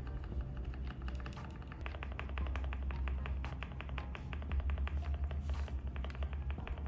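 Fast typing on a GMK67 mechanical keyboard with hand-lubed Gateron Silver Pro v3 linear switches: a rapid, even run of soft key clacks. Background music with a steady bass plays underneath.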